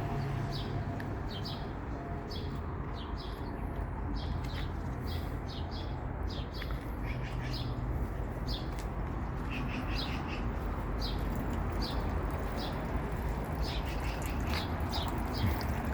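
Small birds chirping: short, high chirps repeated irregularly, a few every second, over a steady low background hum.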